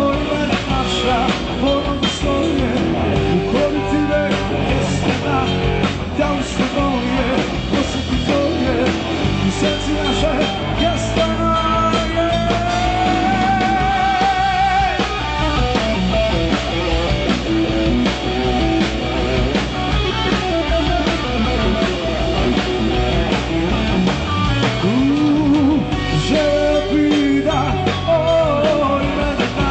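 Rock band playing a song with a singer, steady drumming underneath; a long held note wavers with vibrato about twelve seconds in.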